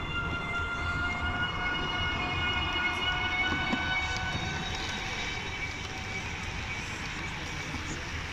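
Model electric locomotive pulling passenger coaches along layout track, with a steady high whine that is loudest about three seconds in and fades away after about five seconds. A low, steady background noise from the exhibition hall runs underneath.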